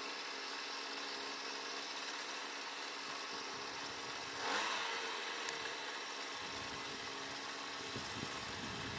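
Steady hum of an engine running at idle, with a brief swell about four and a half seconds in and a low rumble added from about six and a half seconds.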